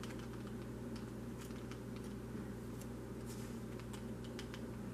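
Quiet room tone: a steady low hum, with a few faint scattered clicks.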